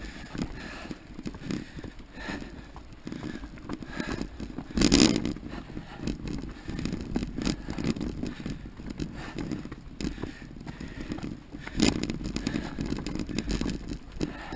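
Mountain bike ridden over a rough dirt trail: tyres rolling over dirt and debris, with the bike rattling and knocking over bumps throughout. Two hard jolts stand out, about five seconds in and again near twelve seconds.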